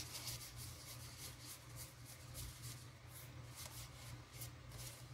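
Faint, repeated soft swishes of trading cards being slid one by one off a hand-held stack of Magic: The Gathering cards, several a second, over a low steady hum.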